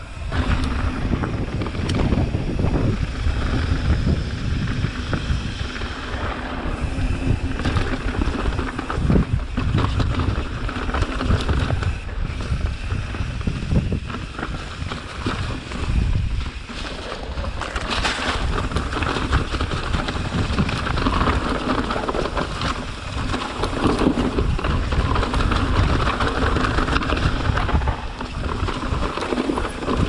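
Mountain bike ridden fast downhill, with wind buffeting the microphone, tyre noise on the dirt, and frequent knocks and rattles from the bike over bumps.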